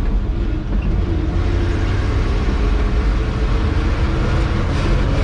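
1971 Chevrolet C50 boom truck driving along the road, its engine and road noise heard from inside the cab as a steady low rumble.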